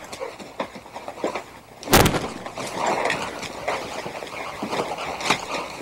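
Scuffle of a fistfight: a loud thud about two seconds in, then rustling and scattered knocks as the fighters struggle on the leaf-strewn ground.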